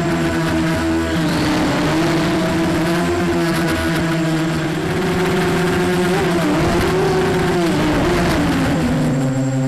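Motors and propellers of a 250-size FPV racing quadcopter whining steadily, the pitch wavering up and down with the throttle.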